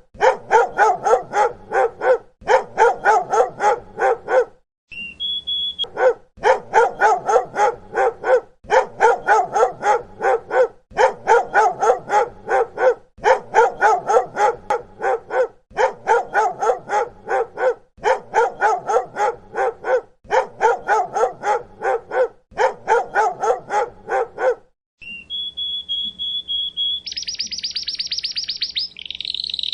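Dog barking rapidly, about four or five barks a second, in repeated runs of about two seconds with short breaks. Near the end the barking stops and a high, steady chirping tone with a fast buzzing trill takes over.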